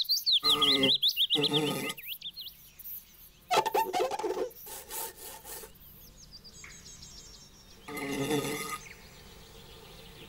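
Cartoon sound effects for an animated fly trapped under an upturned glass: short pitched buzzing bursts with high squeaky chirps warbling over them, then a louder burst a few seconds in, quieter twittering, and another short burst near the end.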